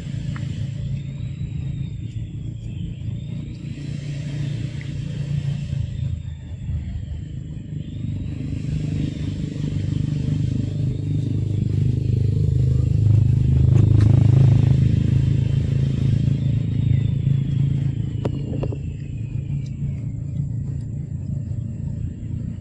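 Steady low rumble that swells to its loudest about two-thirds of the way through, then eases. Over it, high buzzing comes and goes in pulses every few seconds, with a thin steady high whine and a repeated high call that rises and falls.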